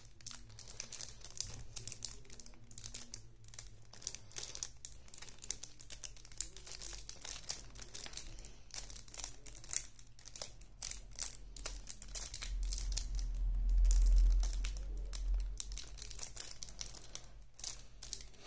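Clear plastic shrink wrap being torn and peeled off a card deck: continuous irregular crinkling and crackling of thin plastic. A low rumble rises and falls about two-thirds of the way through.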